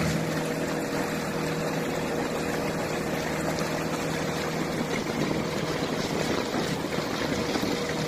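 Small motorboat under way: the engine runs with a steady hum while water rushes and splashes along the hull.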